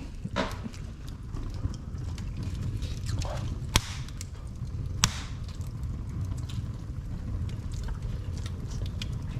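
Wood fire burning in a fireplace: a low steady rumble with scattered faint crackles and two sharp pops, about four and five seconds in.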